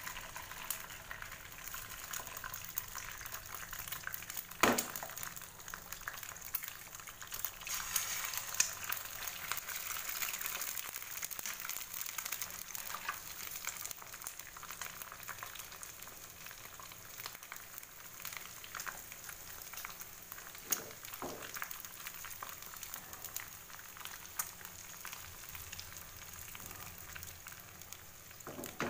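Eggs frying in plenty of hot cooking oil in a frying pan: a steady sizzle and crackle, a little louder several seconds in. A sharp knock comes about five seconds in, and a few fainter ones follow later.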